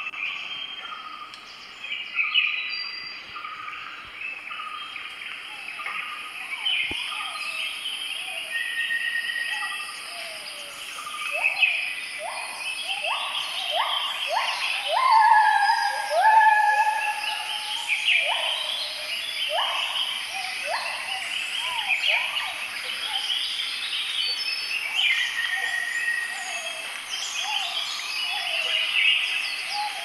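Several birds calling and chirping over one another: repeated short upward-sweeping calls and clear whistled notes, over a steady high hiss.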